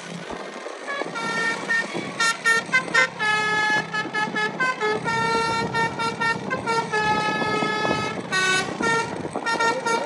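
A pianika (melodica) playing a fast, lively horn-style 'basuri' tune in short, quickly changing notes, starting about a second in over road noise.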